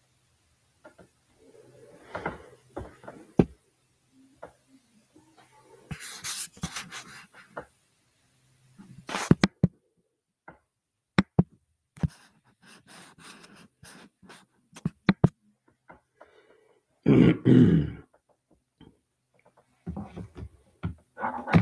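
Handling noise close to the microphone: irregular clicks, taps and rustles, with a louder, longer rustling burst near the end.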